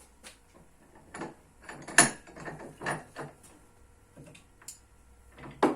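Irregular knocks and clicks from objects being handled in the workshop, spaced unevenly. The loudest comes about two seconds in, and a louder pair falls near the end.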